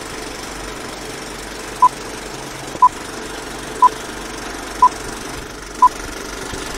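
Old-film countdown leader sound effect: a steady film-projector rattle with a short, high beep once a second.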